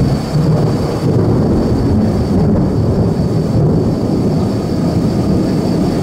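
Thunder rolling: a long, steady, loud low rumble.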